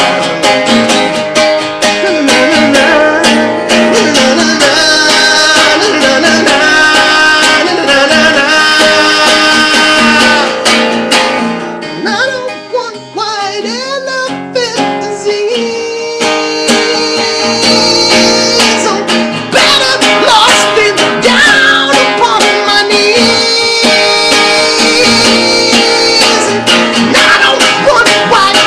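Acoustic guitar being strummed, with a wordless sung melody over it. It turns softer for a few seconds around the middle.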